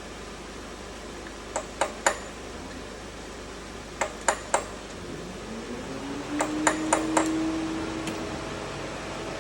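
Light metal-on-metal taps with a short ring, in quick groups of three or four, as a tool is tapped on engine parts during a bottom-end strip-down. About five seconds in, a motor spins up with a rising whine and then runs at a steady hum.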